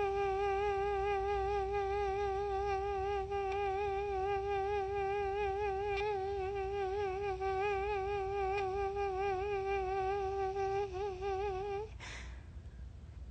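A woman humming one long held note with a slight waver, ending with a short upward slide and a click about twelve seconds in.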